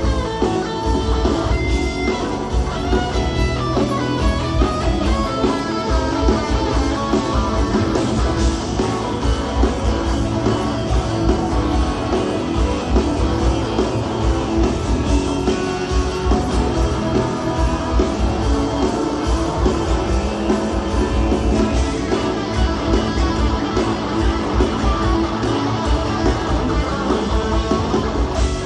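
Rock band playing an instrumental passage, led by guitar over a steady drum beat.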